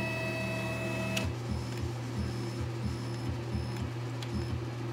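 Stepper motors of a Minitech desktop CNC jogging an axis slowly: a steady whine that stops with a click about a second in, then a run of short stop-start hums.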